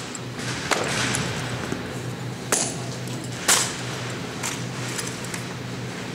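Drill rifles handled in an exhibition routine: several sharp clacks and slaps of hands on the rifles, spread roughly a second apart, the strongest about halfway through, over the steady background noise of a large hall.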